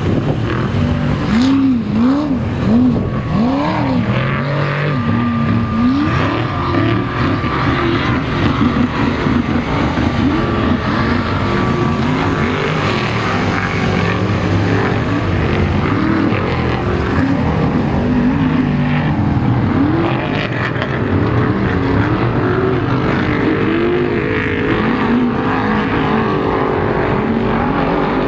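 Engines of off-road race vehicles (trophy trucks and Class 1 cars) running hard, their pitch climbing and dropping about once a second as the drivers get on and off the throttle. More than one engine can be heard at once.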